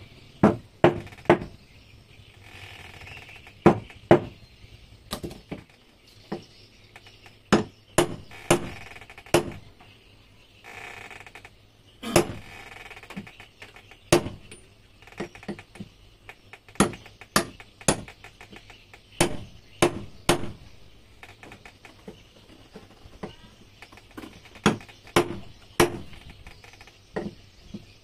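Hammer blows on a metal part of a Yamaha 15 hp outboard's lower-unit gearbox, tapping a part into place during assembly: dozens of sharp taps in short clusters, each with a brief metallic ring.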